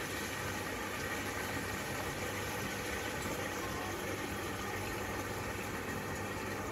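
Electric water pump running with a steady hum, water rushing from a hose into a plastic basin.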